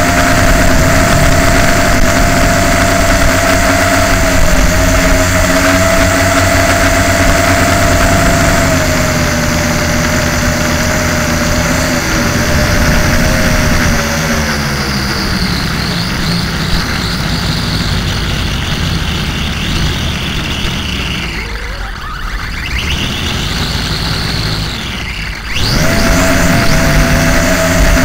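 Small quadcopter's motors and propellers whining at a steady pitch, heard through the onboard camera's microphone with a rushing noise underneath. About halfway through the whine drops lower and weaker and wavers up and down as the quad comes down. Shortly before the end it jumps back to a steady, louder pitch.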